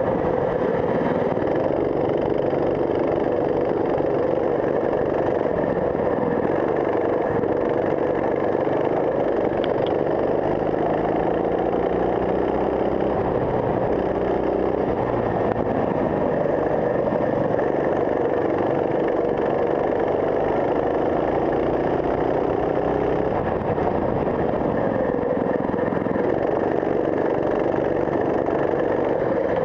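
Racing kart engine heard close from on board, running hard under load: its note climbs steadily for over ten seconds mid-way as the kart accelerates, then drops back as it slows for a corner.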